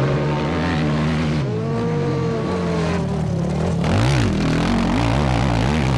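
Motocross bike engine revving under racing throttle, its pitch rising and falling, with a sharp rev up and back down about four seconds in, then quick short blips.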